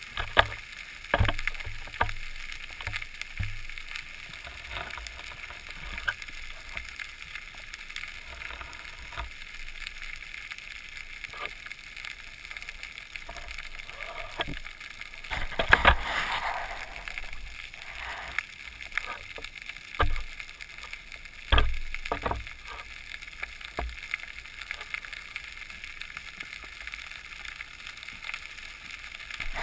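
Muffled underwater sound heard through a waterproof camera housing: a steady hiss with scattered knocks and clicks, and a longer rushing swirl about 16 seconds in.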